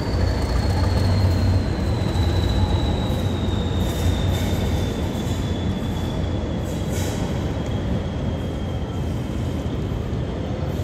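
Hastings diesel-electric multiple unit pulling away, its rear power car's diesel engine rumbling past at first before the train's noise eases off as it recedes. A thin, high wheel squeal slowly falls in pitch throughout.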